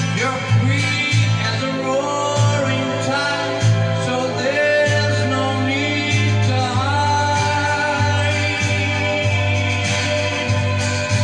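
A voice singing a slow melody of long held notes, accompanied by guitar.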